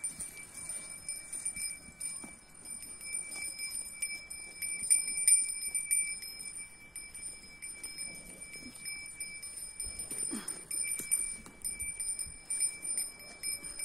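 A small metal bell jingling and ringing steadily, with louder clusters of jingles about five seconds in.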